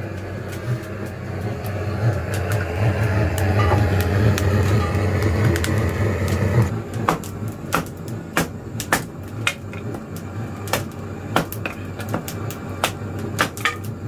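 Burning firewood crackling and popping in irregular sharp snaps. A steady low hum runs under it and cuts off suddenly about halfway through.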